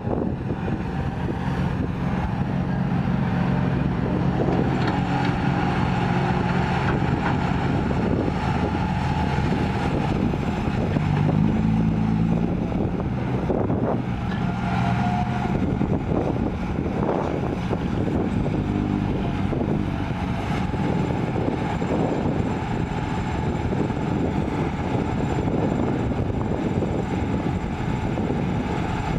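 Diesel engine of a hydraulic excavator running under load, its pitch rising and falling repeatedly as it works through digging and loading cycles.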